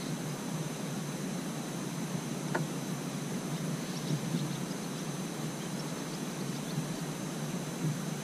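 Steady outdoor background noise with a faint, steady high-pitched tone above it, and a single faint click about two and a half seconds in.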